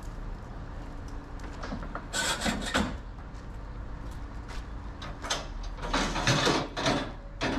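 Metal scraping and rattling at the back of a cargo box truck as gear is pulled out to unload a car, in two longer bursts about two seconds and six seconds in, with a few sharp clicks between them, over a steady low rumble.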